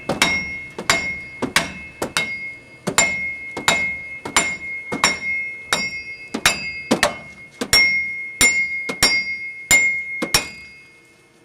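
Steady hammer blows on steel at a pickup's wheel-bearing hub, about two strikes a second, each with a high metallic ring. The blows stop about ten and a half seconds in. This is typical of knocking out a stuck hub during a wheel bearing replacement.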